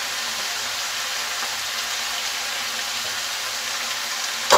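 Radish leaves and spices frying in a pan, a steady sizzling hiss, with one sharp knock near the end.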